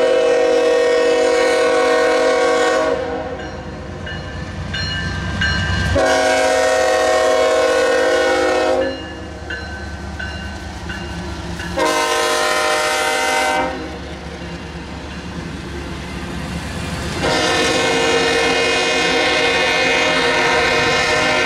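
Norfolk Southern diesel locomotive's air horn sounding the grade-crossing signal: a long blast already sounding at the start, a second long blast, a short one, and a final long blast that begins near the end. Between the blasts the locomotive and the double-stack container cars rumble and clack past on the rails.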